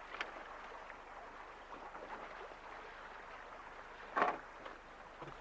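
Water rushing steadily past a moving boat's hull, with a short, louder splash-like burst about four seconds in.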